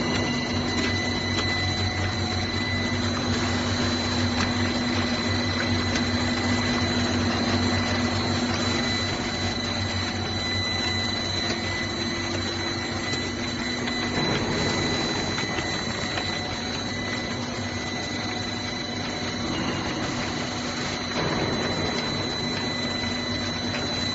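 Twin-screw PVC corrugated pipe extrusion line running: a steady mechanical clatter with a constant high whine and a low hum, dipping slightly in level about halfway through and rising again near the end.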